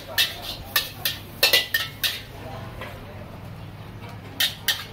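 Metal spatula and ladle clanging and scraping against a wok during stir-frying, in quick runs of sharp clanks, with a quieter stretch in the middle.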